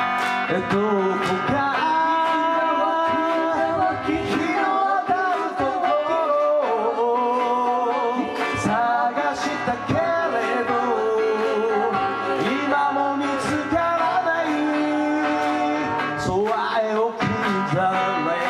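Live band playing a song: guitar and drums under a wavering lead melody line.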